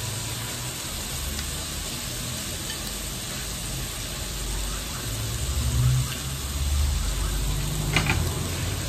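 Beef rolls wrapped around enoki mushrooms sizzling steadily on a tabletop electric grill plate, with some low rumbling in the middle and a sharp click near the end.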